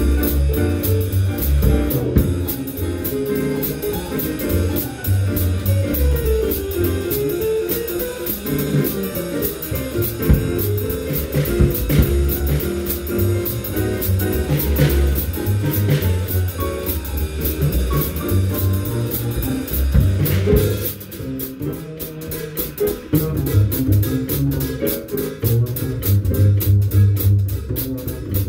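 Jazz trio playing: plucked upright bass, a drum kit played with sticks on cymbals and drums, and a digital keyboard with a piano sound. About two-thirds through, the keyboard's higher notes drop back, leaving the bass and drums most prominent.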